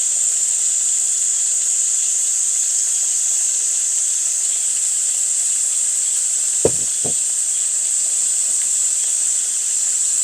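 Steady, high-pitched chorus of insects buzzing without a break. Two short low sounds come about two-thirds of the way through.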